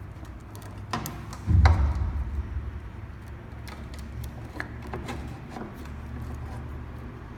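Clicks and knocks of scooter parts and wiring being handled during assembly, with one loud, low thump about one and a half seconds in, over a steady low hum.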